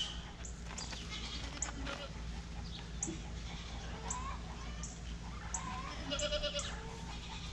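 Goats bleating several times, the loudest calls about six to seven seconds in, over a steady low rumble of wind.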